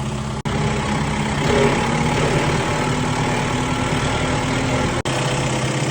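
An engine idling steadily, with a low, even hum. The sound cuts out for an instant twice, about half a second in and near the end.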